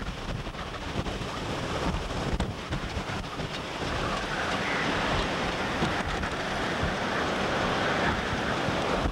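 Hurricane-force wind buffeting the camcorder microphone in gusty low rumbles, over the rush of wind-driven waves and spray on rough water. About four seconds in, the hiss grows louder and steadier.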